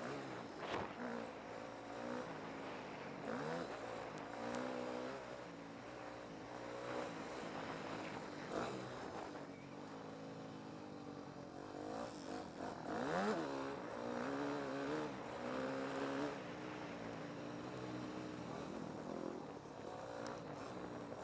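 Yamaha motocross bike's engine revving up and down repeatedly as it is ridden hard round a dirt track, heard close up from a camera on the rider, with a few knocks.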